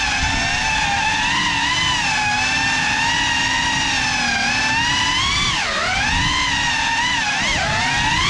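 Small FPV quadcopter's motors and propellers giving a high whine that wavers in pitch with the throttle, dipping sharply and climbing again about two-thirds of the way through and once more near the end.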